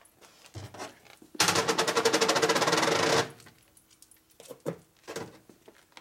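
A tool rattling rapidly and evenly, about twenty knocks a second, in one burst of a little under two seconds, with lighter knocks and clicks of parts being handled before and after it.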